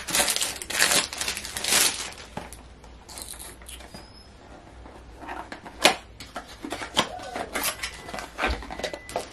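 Plastic wrapping crinkling and a paper perfume box being handled and opened. Loud bursts of crinkling in the first two seconds, then quieter rustling with scattered taps and clicks, the sharpest about six seconds in.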